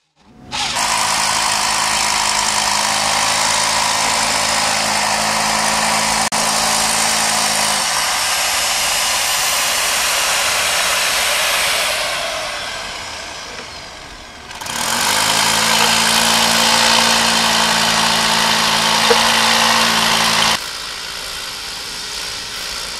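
A handheld electric power tool running at full speed. It winds down over a couple of seconds, spins back up and runs again, then stops.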